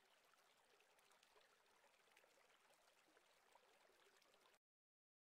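Near silence: a very faint hiss with a few tiny ticks, then the sound drops out completely about four and a half seconds in.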